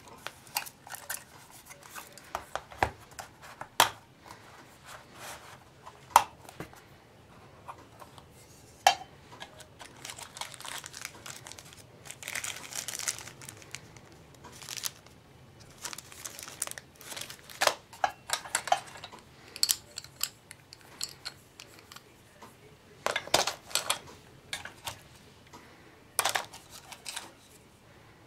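Hands handling an ammo-style storage tin and its contents: scattered clicks and knocks of hard items being picked up and set down, with a clear plastic zip bag crinkling about halfway through.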